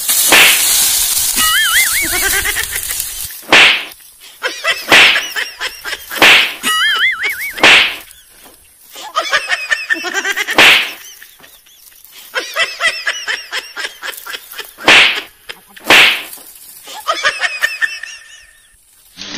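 Armfuls of dry palm fronds and dead branches crashing and rustling as they are thrown down onto a firewood pile, about eight times, with warbling chirps between the crashes.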